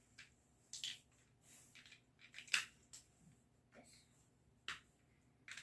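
Plastic Lego pieces being handled and fitted: a scattering of short clicks and rustles, the sharpest about two and a half seconds in.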